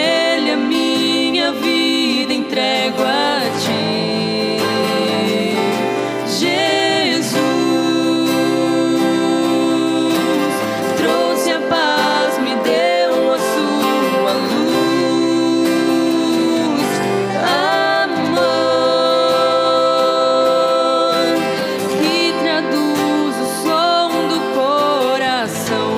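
Live song: a voice singing over guitar accompaniment.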